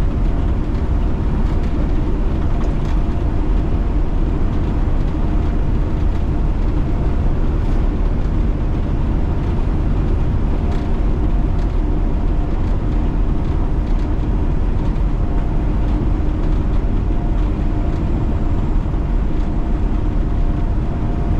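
Semi truck driving, heard from inside the cab: a steady low engine and road drone with a few faint humming tones above it.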